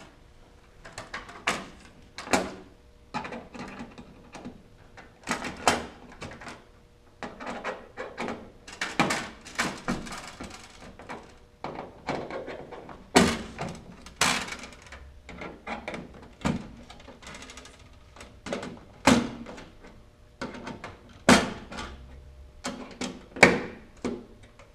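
Sheet-aluminium cowling panel being fitted onto a turboprop engine nacelle and its Dzus quarter-turn fasteners turned with a hand tool: irregular metal knocks, clicks and rattles, about one every second or so.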